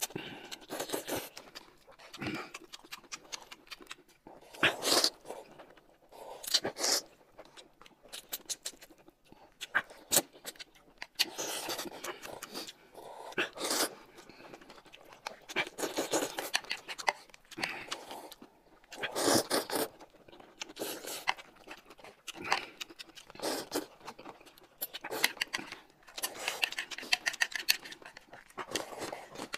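Close-miked eating sounds: irregular chewing, biting and crunching of food in quick, uneven bursts.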